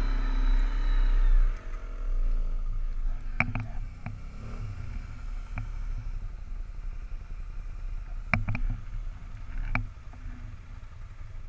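Arctic Cat 550 ATV engine running on tracks through snow, its pitch easing down, then dropping off sharply about a second and a half in. After that a low rumble continues with a few sharp knocks, two of them close together near the end.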